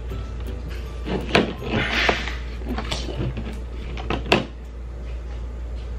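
Glitter slime being poked and squeezed in a plastic tub: wet squishing with sharp pops and clicks. The loudest come about a second and a half in and again near four and a half seconds.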